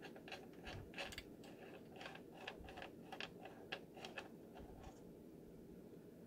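A string of faint, irregular small metallic clicks and scrapes as the silver thumb screw holding the fashion disc of a Singer Style-o-Matic 328 sewing machine is turned counterclockwise and backed out.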